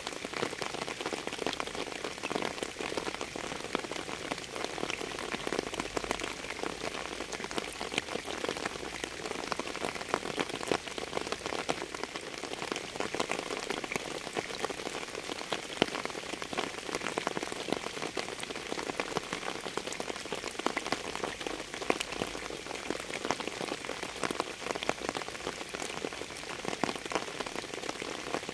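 Steady rain falling, a dense, even run of individual drop hits with no let-up.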